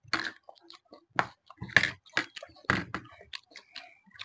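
Food being chewed and bitten: an irregular run of crisp crunches and wet smacks, a few much louder than the rest.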